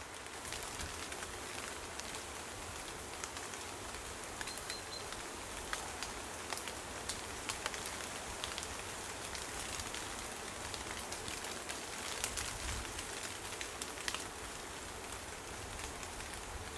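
Light rain pattering outdoors: a steady hiss with many small scattered drop ticks.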